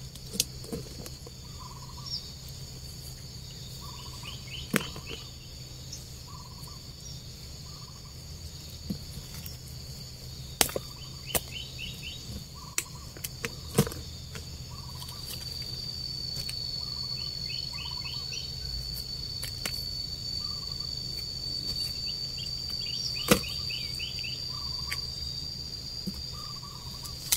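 Fresh cassava roots being snapped from their stems and dropped into a woven basket: a few sharp knocks and snaps, the loudest near the end. Insects trill steadily behind them, louder from about halfway through.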